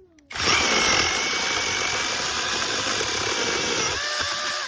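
Cordless brushless mini chainsaw running under the trigger with a steady high whine and chain noise. It starts abruptly and its pitch shifts near the end.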